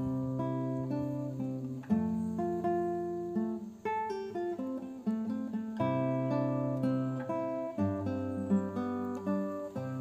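Background music: an acoustic guitar plays plucked chords, the chord changing about every two seconds.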